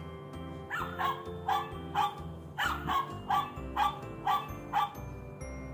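Electronic sound book's dog button playing a recorded dog barking in a quick string of short barks, over a cheerful music-box style tune.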